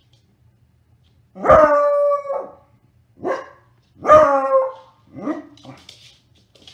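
Beagle barking and baying at a toy: two long, loud bays with a sharp start about a second and a half and four seconds in, and shorter barks between and after them.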